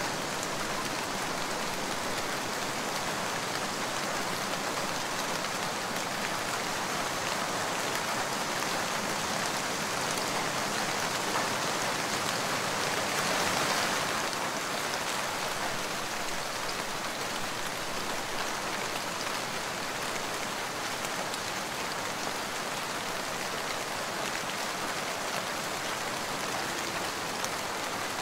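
Steady rain falling, an added rain-sound track rather than the scene's own audio. It runs as an even hiss of drops, growing a little louder about halfway through.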